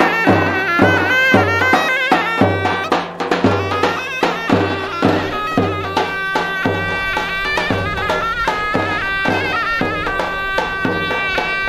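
Turkish folk music: a shrill reed wind instrument plays a wavering, ornamented melody over a drum keeping an even beat of about two strokes a second.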